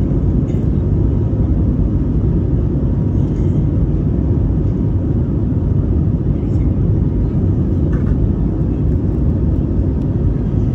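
Airbus A320neo in flight heard from inside the cabin over the wing: a steady, loud, low rumble of engine and airflow noise.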